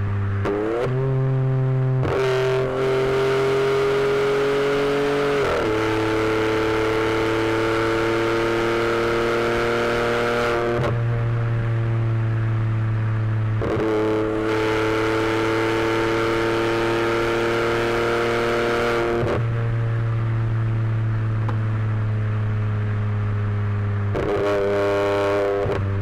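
VW Polo TSI with an aftermarket exhaust and stage 2 remap, its engine and exhaust droning steadily at highway speed. The note climbs slowly under throttle and drops back several times, with stretches where only a low hum remains.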